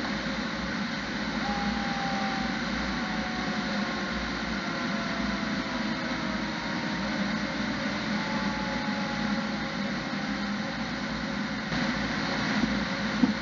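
Fire engine running at road speed, a steady rumble of engine and tyre noise heard from inside the cab. There is a single short knock near the end.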